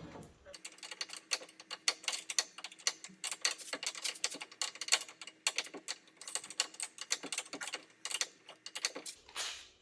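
Ratchet wrench clicking quickly and unevenly as the axle nut is run onto the axle shaft.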